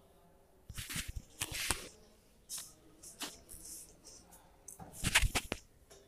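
Chalk tapping and scraping on a blackboard as numbers are written, in short clusters of sharp taps, the loudest cluster about five seconds in.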